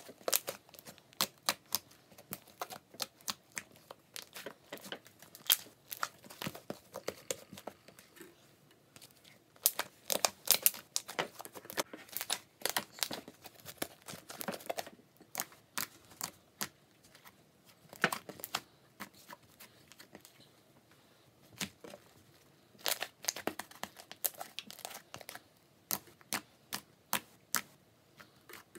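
Homemade glue-and-borax slime being poked, pressed and squished by hand: irregular clusters of sharp sticky pops, clicks and crackles, with a few short quiet gaps.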